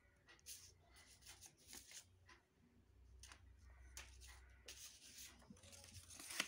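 Faint, irregular rustling of paper strips being handled and slid across the table.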